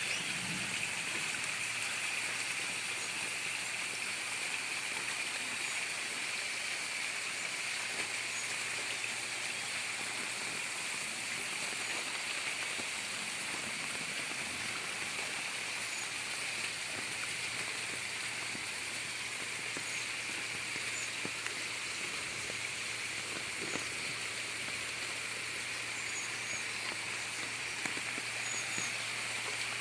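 Steady rain with running, gurgling rainwater, an even unbroken rush. Faint short bird chirps come through now and then.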